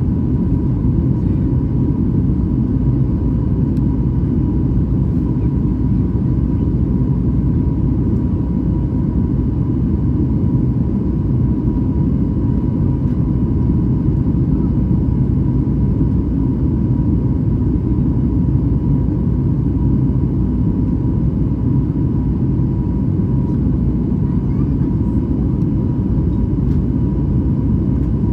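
Steady cabin rumble inside a Boeing 737 MAX 8 airliner, with a faint steady tone running through it.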